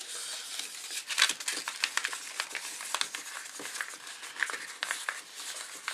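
A sheet of paper being folded and rolled into a tube by hand, crinkling in irregular crackles, the loudest about a second in.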